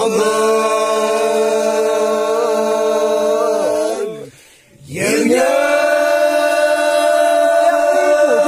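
Group of men chanting in unison on long held notes: two drawn-out phrases of about four seconds each, each ending in a falling glide, with a brief breath between them about four seconds in.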